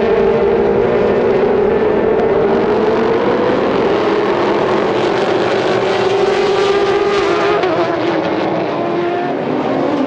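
A packed field of Le Mans prototype and GT endurance race cars running bunched up through the opening corners after a race start. Many engines overlap at high revs, their pitches falling and rising as the cars brake, shift and accelerate.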